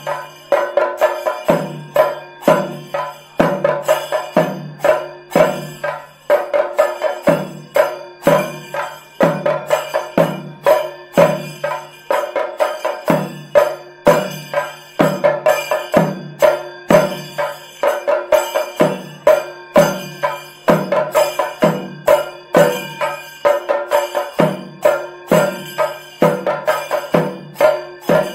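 Chenda drums of a Kerala pandi melam beaten with sticks in a loud, fast repeating rhythm, with ringing metal percussion sounding between the strokes.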